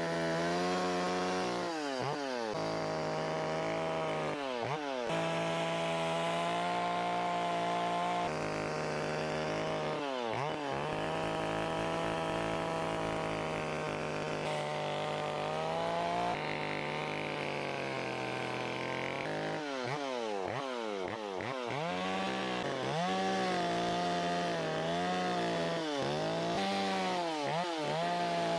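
Chainsaw running at high revs while cutting into wood. Several times the engine note drops sharply and climbs back up as the throttle is let off and squeezed again.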